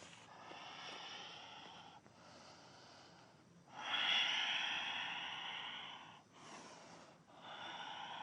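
A person breathing deeply and audibly in and out during a vigorous yoga flow, about five breaths with short gaps between them. The loudest is a long breath starting about four seconds in.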